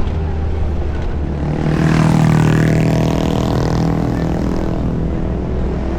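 Suzuki Jimny's engine running under throttle: a steady drone that swells louder and higher about two seconds in, then eases back.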